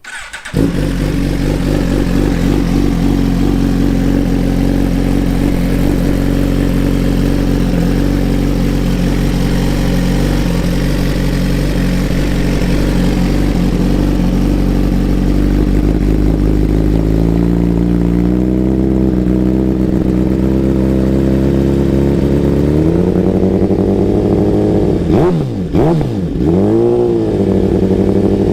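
2017-and-up Suzuki GSX-R1000 inline-four running through a Brock's Performance Alien Head full exhaust system. It starts about half a second in and idles, the revs are raised in two steps in the second half, and there are two quick throttle blips near the end.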